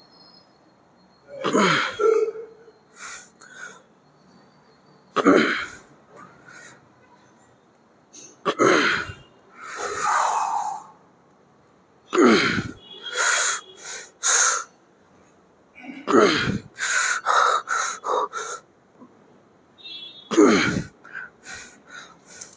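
A man grunting and exhaling forcefully through a set of slow press reps: six strained breaths about four seconds apart, each dropping in pitch, with quicker sharp puffs of breath in between.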